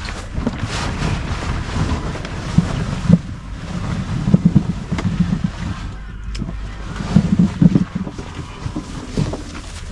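Wind buffeting the microphone: an uneven low rumble that swells and dips in gusts, with a couple of sharp clicks.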